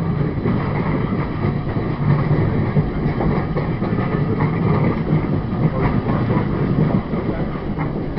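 Old wooden railway carriage running along the track, heard from an open window: a steady rumble of wheels on rail with a few clicks of clickety-clack.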